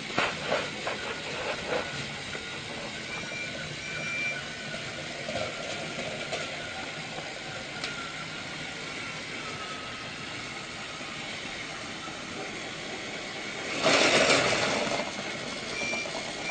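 Train running steadily, with a few clicks in the first two seconds and one loud hiss about fourteen seconds in that lasts about a second.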